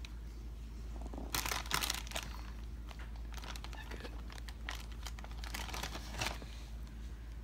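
Hands handling and pressing thin slices of Black Forest deli ham over a roast in a glass baking dish: irregular crinkling and rustling, loudest about a second and a half in, over a low steady hum.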